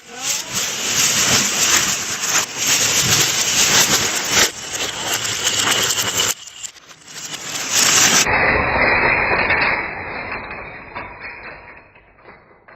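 Wooden Kapla planks clattering down in a long cascade, a dense continuous rattle that dies away over the last few seconds.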